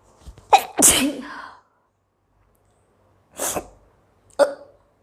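A woman sneezes hard once, brought on by black pepper, about half a second in. A few seconds later there is a shorter breathy burst, then a short sharp hiccup.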